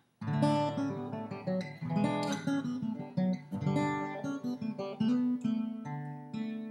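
Background music: acoustic guitar, strummed and picked, starting just after a brief silence.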